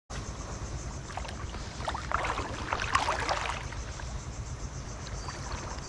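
Sea surf and wind at the shoreline: a steady low rumble, with a crackling wash of water swelling about two seconds in and fading out by about three and a half seconds.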